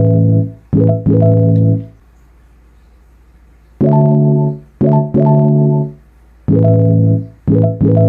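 Background music: loud sustained chords in short stabs in a short-long rhythm, with a pause of about two seconds before they return.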